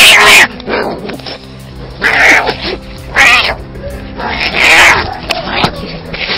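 An orange tabby and a black cat fighting, with about four loud, short cries in quick succession, over background music with steady held notes.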